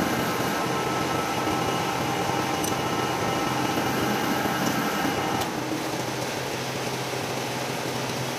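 Metal lathe running with a stub axle spinning in its chuck, a steady mechanical whine while the bearing seat is turned to size. About five seconds in the whine stops as the lathe is switched off, leaving a lower steady hum.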